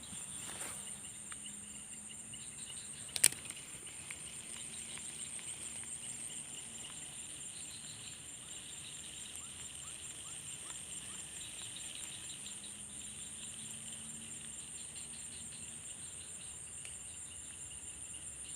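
Insects, crickets or similar, chirping steadily at a high pitch in a fast continuous trill. A single sharp click comes about three seconds in.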